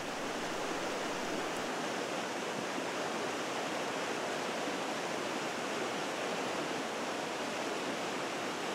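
Glacier-fed mountain stream rushing over rocks in whitewater: a steady, even rush of water.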